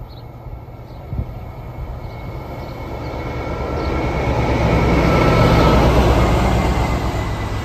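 GBRf Class 60 diesel-electric locomotive hauling a train of hopper wagons approaches and passes. The engine and the wheels on the rails grow steadily louder, peak about five to six seconds in, then ease as the wagons roll by. There is one sharp knock about a second in.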